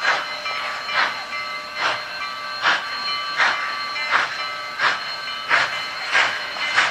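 Union Pacific 844, a 4-8-4 Northern steam locomotive, working toward the listener with a steady, even exhaust beat of about one and a half chuffs a second.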